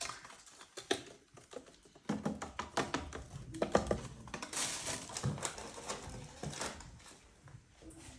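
Irregular clicks, knocks and rustling of household objects being handled, busiest in the middle.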